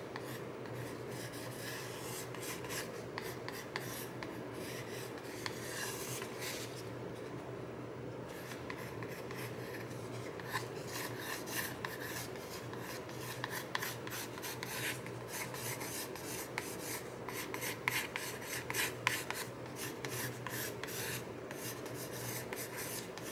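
Graphite pencil sketching on corrugated cardboard: runs of short, scratchy strokes with brief pauses.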